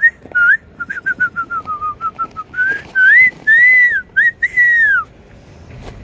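A person whistling a tune: a rising whistle, then a quick run of short notes stepping down in pitch, then a few longer arched notes, ending in a falling whistle about five seconds in.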